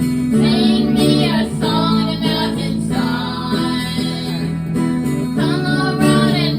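A female voice sings long held phrases with vibrato over an acoustic guitar.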